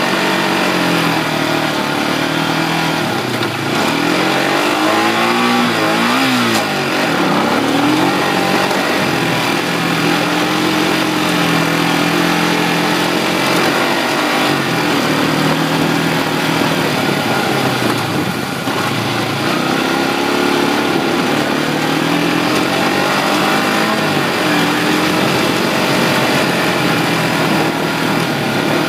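A 1988 Kawasaki Mojave 250's single-cylinder four-stroke engine running as the quad is ridden around a dirt course. Its pitch rises and falls again and again as the throttle is worked, with a sharp dip and climb about six seconds in.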